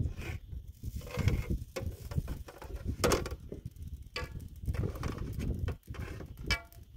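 Bread dough being patted and slapped by hand into flat rounds for baking on a metal griddle, heard as irregular soft pats and knocks, with a couple of brief metallic rings about three seconds in and near the end.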